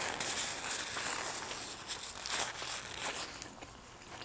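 Paper napkin crinkling and rubbing between the hands, close to a lapel microphone, with scattered small clicks; it dies away about three and a half seconds in.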